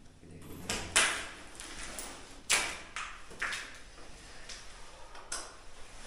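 Shoes scuffing and stepping on a gritty concrete floor, a handful of sharp scrapes and knocks. The two near one second and two and a half seconds in are the loudest.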